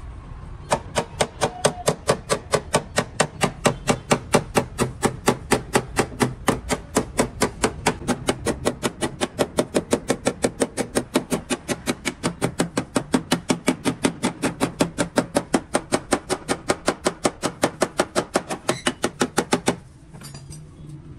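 A hammer tapping on a car's sheet-metal body panel, working the damaged rear side panel, in a fast, even rhythm of about five strikes a second. The strikes start just after the beginning and stop abruptly near the end.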